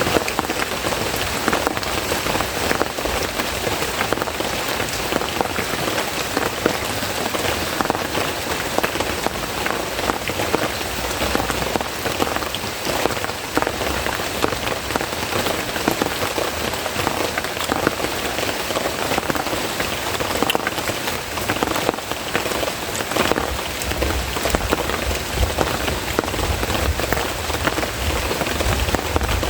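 Heavy rain falling steadily, with many separate drop hits close by. A low rumble joins in near the end.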